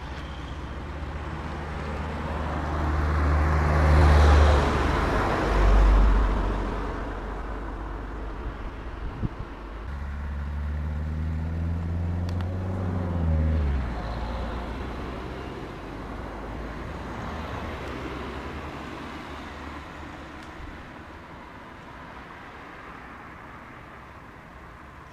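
Cars passing on a road: engine and tyre noise swelling and fading, loudest about four and six seconds in. Another car goes by around ten to fourteen seconds in, its engine note dropping as it passes, and the traffic noise then fades away.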